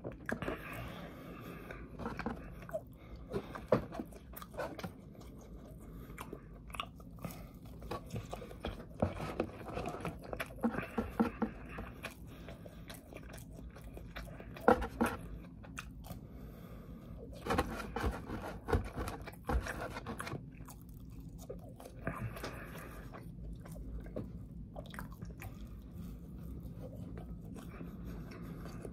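A person chewing and biting food, with irregular crunches and mouth clicks and a few sharper bites standing out.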